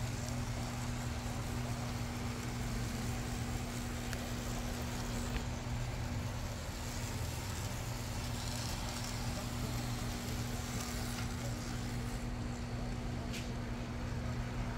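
AZL Z scale PRR E8A model diesel locomotives running steadily around the track, a steady low hum with a few faint ticks.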